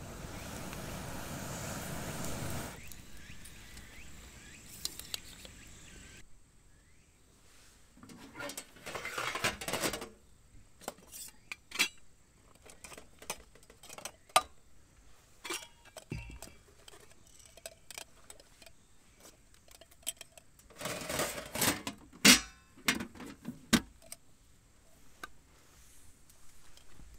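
Metal camp gear clinking and clattering against a steel storage box as it is packed and the lid is set down: a string of sharp knocks and clinks, with the loudest clatter about two-thirds of the way through. It opens with a few seconds of even rushing noise.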